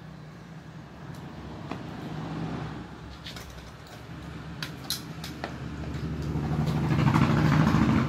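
A motor vehicle engine humming, growing steadily louder over the last few seconds, with a few light clicks and knocks along the way.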